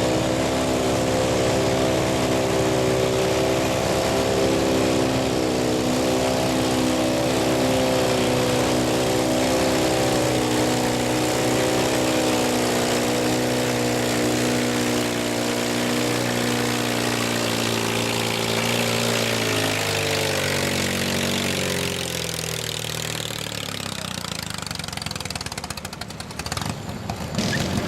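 Modified riding lawn mower engine running hard at steady high revs during a pull, then its pitch slides down and the sound fades over several seconds as it winds down.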